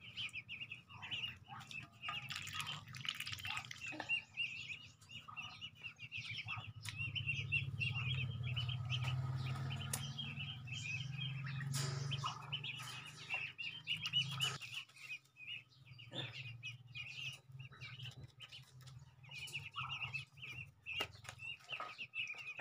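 Birds chirping in a steady run of quick, high chirps, with a low hum underneath that swells in the middle.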